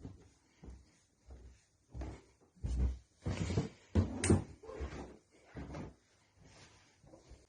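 A series of irregular knocks and thumps in a small room, one or two a second. They are heaviest and most bunched together from about three to four and a half seconds in.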